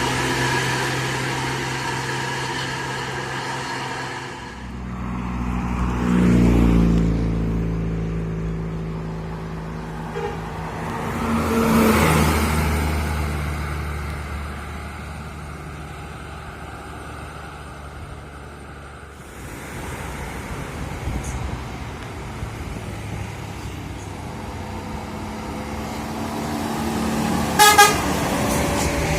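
Large buses driving past one after another, engine sound swelling and falling away as each passes, twice loudly. A bus horn sounds in steady tones at the start and gives a short loud blast near the end.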